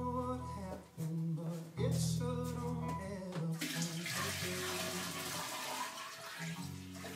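Background music with a steady bass line. From about halfway in, water runs from a tap for about three seconds, plausibly brewing water being drawn.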